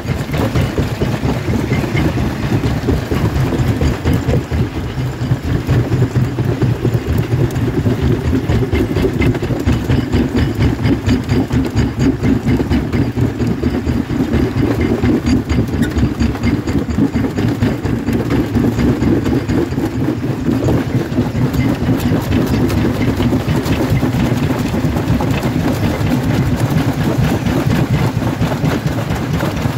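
Jaw crusher running under load, its moving jaw working in a fast, steady rhythm as it breaks slabs of rock, with the knocking and cracking of the stone between the plates.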